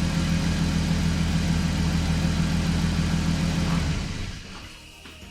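1997 Dodge Intrepid's 3.3-litre V6 idling steadily, then shut off about four seconds in, running down quickly to quiet. It is run briefly after a fresh oil fill to circulate the oil before the level is checked.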